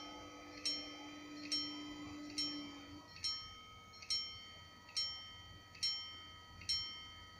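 Level crossing warning bell ringing, one sharp struck note a little under every second, each ringing on and fading before the next. Under it a steady hum, likely the barrier drive, stops about three seconds in as the lowering barrier arms come to rest.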